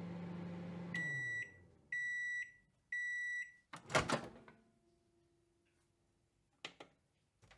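Microwave oven running with a low hum that winds down about a second in, then three beeps as the timer ends, then a loud clack of the door being opened a second later. Two small clicks follow near the end.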